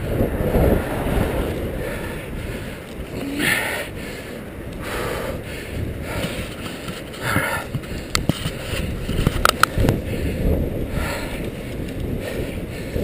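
Wind buffeting the microphone of a camera on a moving bicycle, over a low rumble of tyres on the road. Several short hisses come through at irregular spacing, and a few sharp clicks sound just past the middle.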